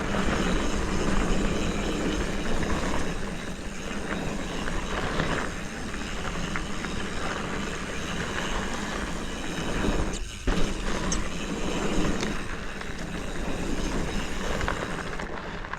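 Yeti ARC hardtail mountain bike ridden along a dirt singletrack: steady tyre and riding noise with rattles and scattered knocks over the terrain, one sharper knock just after ten seconds in.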